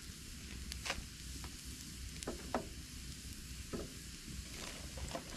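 Campfire of split logs burning with a steady faint hiss and scattered sharp pops and crackles, some of the wood a little wet.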